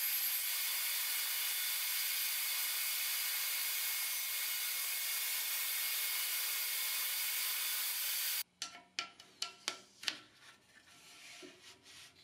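DeWALT table saw running steadily while ripping a thin walnut strip, an even hissing whir. It cuts off abruptly about eight seconds in, and a few light clicks and knocks of wood being handled follow.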